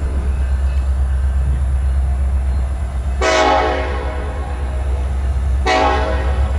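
Horn of an approaching BNSF SD70ACe freight locomotive: one long blast starting about halfway in and fading away, then a second, shorter blast near the end, over the steady low rumble of the diesel engines.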